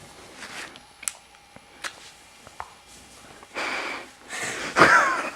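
A couple of short sharp clicks, then loud breathy sniffs and exhalations from a nervous person, ending in a brief strained vocal sound.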